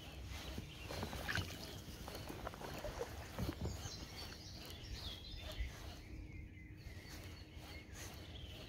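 Handling sounds of a baitcasting rod and reel during a jerkbait retrieve: scattered faint clicks and taps over a low rumble.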